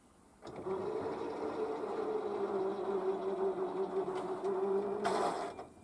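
Electric drive of a level-crossing barrier running as it raises the booms: a steady motor hum with one held pitch that starts about half a second in, then a brief louder burst a little after five seconds as the booms reach the top, before the drive cuts off suddenly.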